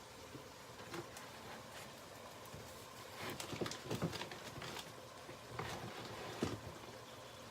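A few light knocks and clicks of kitchen utensils and containers being handled while flour is measured out, grouped around the middle and again near the end, over a faint steady background.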